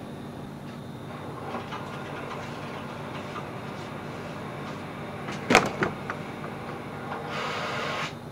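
A sharp knock about five and a half seconds in, a lighter one just after, then a short rustling hiss near the end, over a steady low hum and background noise.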